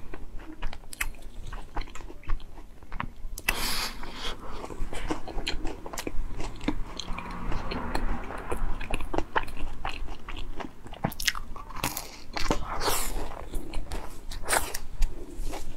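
A macaron being bitten and chewed close to a clip-on microphone: crisp crunching of the shell in many short cracks, with soft mouth sounds in between.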